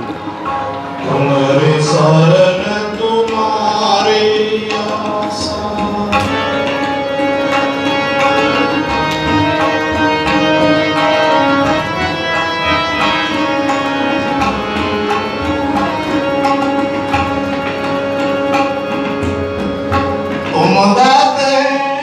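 Sikh shabad kirtan: a singing voice over a held harmonium drone, with tabla strokes keeping a steady rhythm, thickest from about six seconds in.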